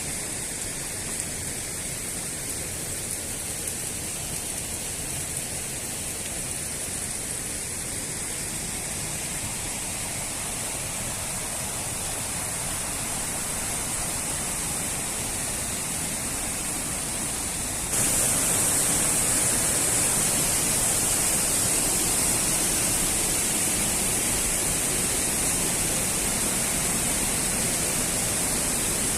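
Waterfall rushing, a steady noise of falling water; about two thirds of the way in it jumps suddenly louder and brighter, as if heard from nearer the falls.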